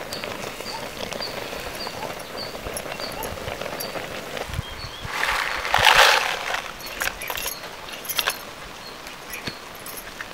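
Metal plate scraping across a round stone mortar as it is slid off, about five seconds in and the loudest sound, followed by a few light clicks and knocks. Before it, a bird repeats a short high chirp about twice a second.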